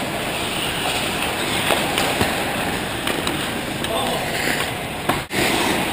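Ice hockey play around the net: skate blades scraping the ice, sharp clacks of sticks and puck, and players calling out. The sound cuts out briefly near the end.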